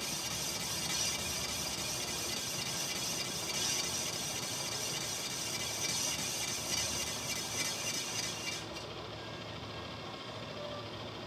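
Continuous metalworking noise from shop machinery: an even, hiss-like noise whose highest part drops away about nine seconds in.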